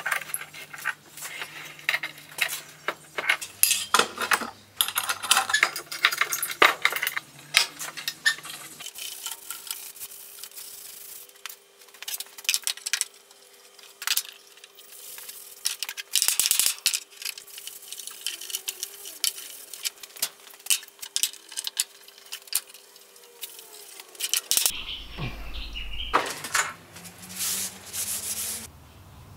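Busy clatter of metal bar clamps and hand tools knocked and handled on a workbench as a timber tabletop is glued up and clamped: many quick taps and knocks, some of them metallic.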